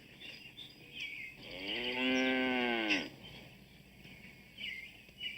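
A cow mooing once, a single long call of about a second and a half that rises at the start and falls away at the end.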